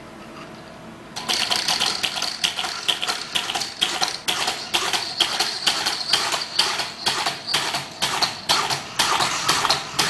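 Monopod hopping robot with a reaction wheel hopping across a carpeted floor: its leg knocks down about two to three times a second, starting about a second in, over a steady high whine from its reaction-wheel motor.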